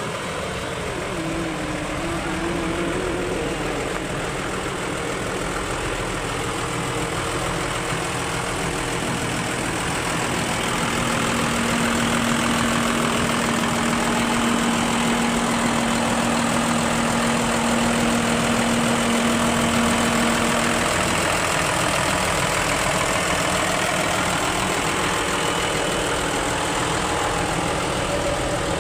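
Concrete pump running steadily on a building site: a continuous engine drone with machinery noise, joined by a steady hum for about ten seconds in the middle.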